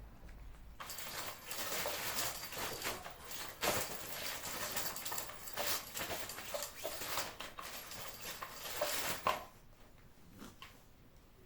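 Kittens eating wet canned cat food from a dish: a dense run of quick, crackly chewing and lapping sounds that stops about nine seconds in.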